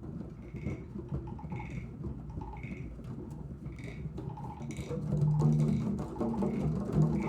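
A class of children playing drums together to imitate a rainstorm: a continuous, dense rumble of many light strikes, with faint swishes about once a second, growing louder and deeper about five seconds in.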